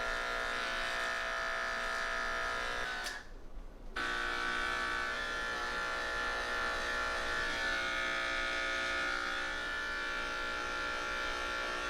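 Electric grooming clippers running at a steady hum while shaving a matted cat's coat; the hum stops for about a second about three seconds in, then runs on steadily.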